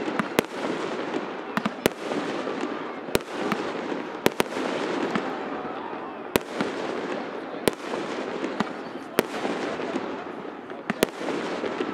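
Aerial fireworks going off: about ten sharp bangs at irregular intervals, over a continuous din.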